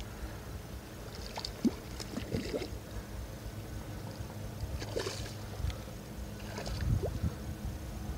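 Water lapping and gurgling against the hull of a drifting kayak, with a few small splashes and knocks over a low rumble like wind on the microphone.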